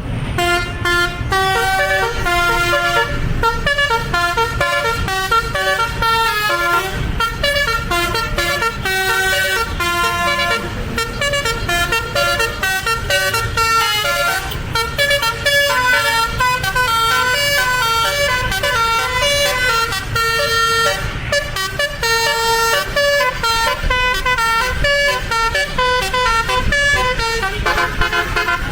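Basuri telolet horn on a tourist bus, a multi-trumpet air horn playing a continuous tune of several notes sounding together, stepping up and down in pitch.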